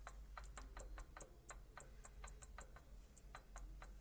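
Rapid, regular light knocking, about four or five clicks a second, over a low steady hum, from a worn gearbox gear driving a truck's PTO: the gear has both axial and radial play, the cause of the extra noise when the PTO is engaged.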